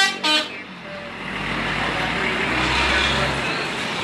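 A bus's 'telolet' musical horn plays two short notes at the start, then gives way to a steady rushing noise with a low rumble, as of the bus driving past.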